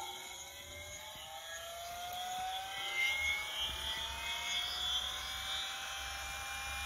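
Large DC electric motor, bigger than a car starter motor, running off a revived lead-acid car battery and spinning up: a whine that rises slowly and steadily in pitch, showing the battery is carrying the heavy load.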